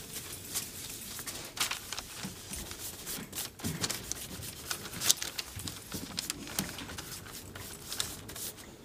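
Antique gel being worked into tooled leather by gloved hands: soft, irregular rubbing and dabbing with scattered small clicks and rustles from the applicator, the nitrile gloves and the kraft paper underneath.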